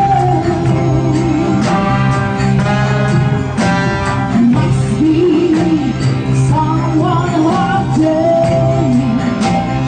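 A live band rehearsing a song: a woman singing into a microphone, her melody bending and holding notes, over electric guitar and keyboard.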